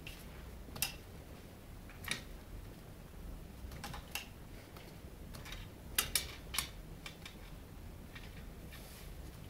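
Scattered light clicks and taps, about half a dozen, with three coming quickly together around six seconds in: a kitten batting a plastic butterfly toy that dangles against a drawer front and its metal handle.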